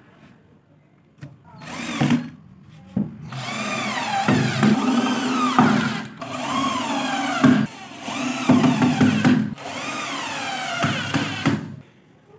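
Cordless drill driving pocket-hole screws into plywood, in several runs with short breaks between screws, the motor whine rising and falling in pitch as each screw is driven and seats.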